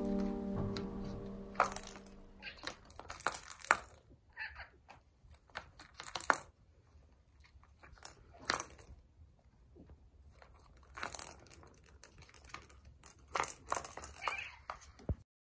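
Kittens batting at a plastic ball-track cat toy and its spring-mounted feather toy: irregular bursts of clicks, rattles and high metallic jingling. Background music fades out in the first couple of seconds.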